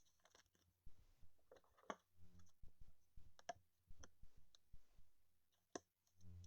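Faint, irregular clicks and soft rustling of baseball trading cards being handled.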